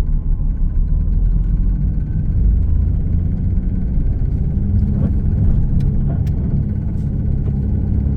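Chevrolet Camaro under light acceleration: engine and road rumble with a faint tapping, tap, tap, tap, that comes only while on the gas and keeps a constant speed whatever the gear or RPM.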